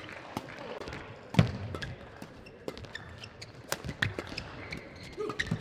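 Badminton rally: rackets striking the shuttlecock in sharp cracks at irregular intervals, with thuds of players' feet on the court and brief shoe squeaks. The loudest sound is a heavy thud about a second and a half in.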